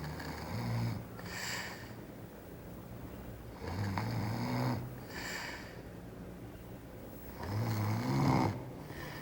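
A woman snoring in her sleep: three snores about three and a half seconds apart, each a low, wavering in-breath followed by a hissing breath out.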